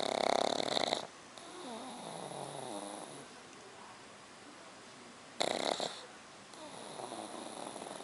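Black pug puppy snoring in its sleep: twice, about five seconds apart, a loud rattling snore about a second long, each followed by a quieter, wavering breath lasting a second or two.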